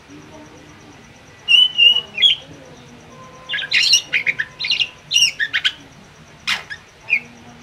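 Caged songbird calling: a couple of sharp chirps about a second and a half in, then quick clusters of chattering, whistled notes from about three and a half to six seconds, and single sharp notes near the end.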